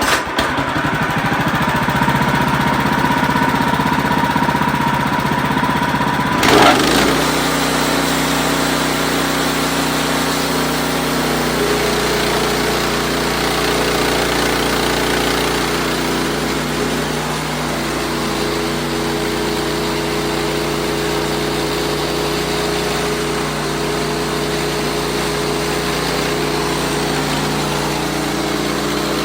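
WoodMizer LX55 portable sawmill running steadily with its engine's even drone. A loud clunk comes about six and a half seconds in, and after it the engine's note shifts.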